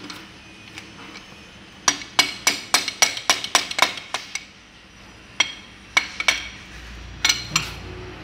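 Metal tool tapping and knocking against a Toyota Kijang power-steering rack while it is being taken apart. There is a quick run of about a dozen sharp, ringing metallic clinks, about four a second, starting about two seconds in, then a few more scattered strikes near the end.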